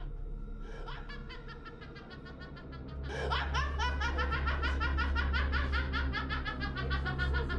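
A possessed woman's rapid, staccato demonic laugh, much louder and fuller from about three seconds in, with a deep low layer underneath.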